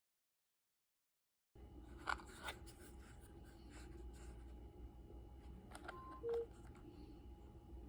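About a second and a half of dead silence, then the mechanical key switches of a handwired macropad clicking as keys are pressed, a few separate clicks. About six seconds in, a short high beep is followed by a lower one.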